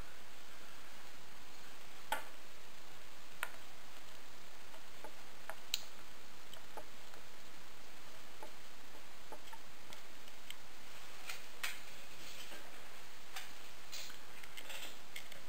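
Scattered light metallic clicks and taps as the points cover is fitted onto the cylinder head of a 1980 Honda ATC 110 and its screws are set in place by hand, over a steady faint hiss.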